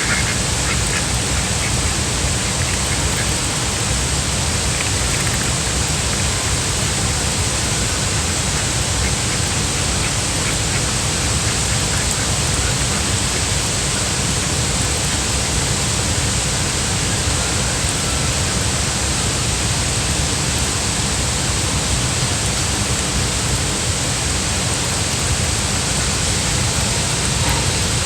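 Steady, loud rushing water noise from running floodwater or rain, with a few faint duck quacks near the start.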